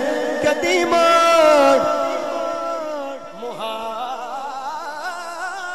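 Male voice singing a naat through a sound system with heavy echo: a long, ornamented held line that slowly falls in pitch and fades after about two seconds, with softer wavering vocal lines carrying on behind.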